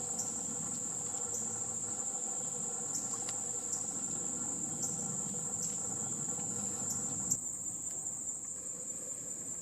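Crickets chirring in a steady, high-pitched chorus. Beneath it, a faint steady hum of several tones stops about seven seconds in, with a few soft clicks scattered through.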